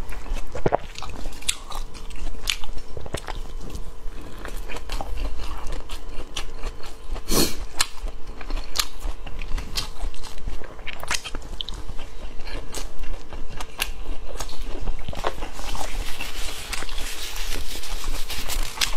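Close-miked eating of a rolled pancake wrap (guozi bing): biting and chewing, with irregular small crisp clicks and smacks of the mouth.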